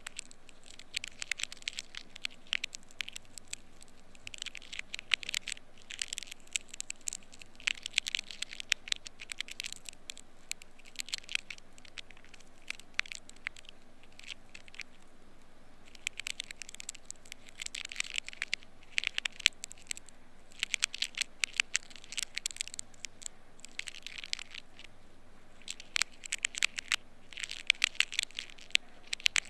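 Ear pick scraping inside an ear canal: dry crackling scratches in bursts of a second or two, with short pauses between.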